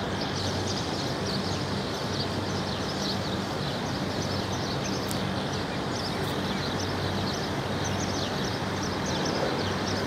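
Outdoor city ambience: a steady hum of traffic with a low machine drone under it, and many short high bird chirps all through.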